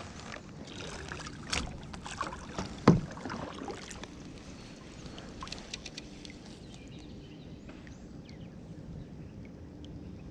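Handling noises in a plastic fishing kayak: scattered knocks and rattles, with one sharp loud knock about three seconds in, then a few light clicks.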